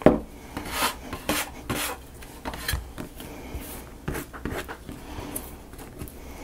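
Paper and card pieces being handled and rubbed on a work surface: irregular short scraping strokes, with a sharp tap right at the start.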